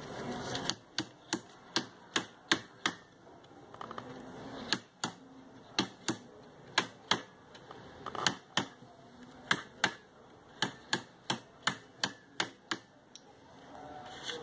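Rapid sharp taps of a hand caning tool knocking against the stretched rattan cane strands on a chair seat, beating them to even the strands out. The taps come in runs of about three a second, with a pause about three seconds in, and stop shortly before the end.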